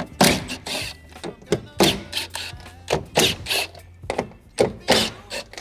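Cordless drill/driver with a socket undoing the 10 mm bolts of a car door's inner panel, over a low steady hum, with a run of irregular sharp knocks and clunks against the metal door.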